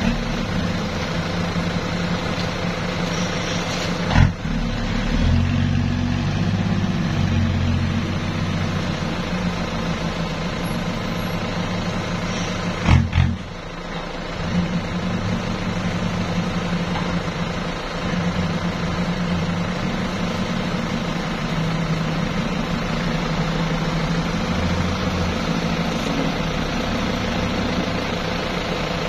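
Diesel engine of a loaded dump truck running at low revs while the truck manoeuvres, its engine note rising and falling. Two sharp knocks stand out, a few seconds in and near the middle.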